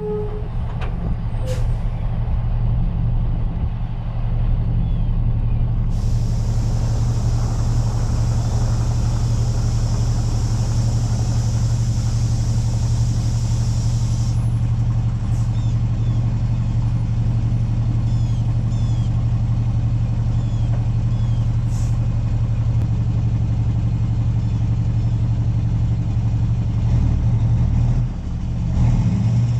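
Semi-truck diesel engine running steadily, with a steady hiss from about six seconds in to about fourteen seconds in.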